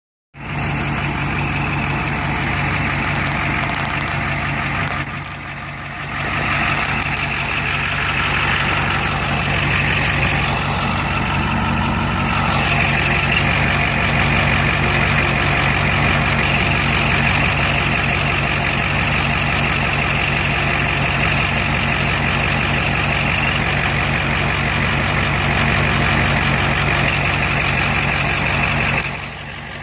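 1989 Ford F-350's engine idling steadily with a high-pitched squeak running over it, which gets stronger about twelve seconds in.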